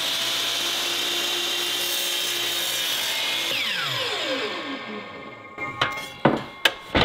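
12-inch DeWalt miter saw running at full speed through an oak board. After about three and a half seconds it is released and the blade winds down with a falling whine. A few sharp knocks follow near the end.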